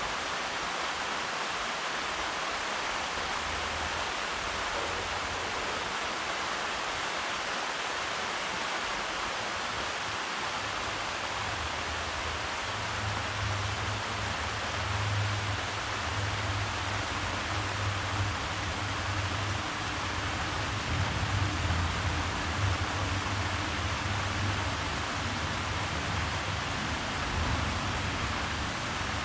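Steady hiss of falling rain. About halfway through, a low rumble comes in underneath and swells for a few seconds near the end.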